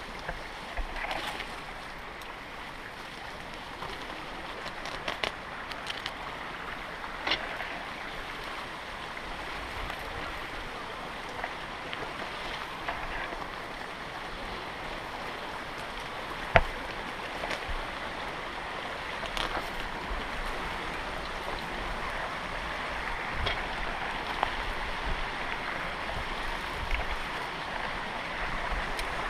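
Steady rush of a mountain stream and waterfall, growing slowly louder, with scattered clicks and knocks, the sharpest a little past halfway.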